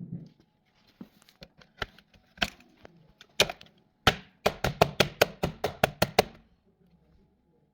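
A run of sharp clicks and knocks, scattered at first, then about five a second for two seconds before stopping.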